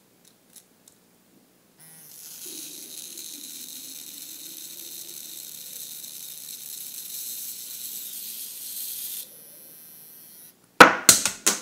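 A steady high hiss that starts about two seconds in and cuts off after about seven seconds. Near the end come a few loud, sharp sounds.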